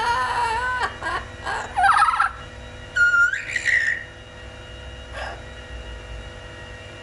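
Blue-fronted Amazon parrot calling: a run of short squawks and whistled calls, some gliding up in pitch, over the first four seconds, then one faint call about five seconds in.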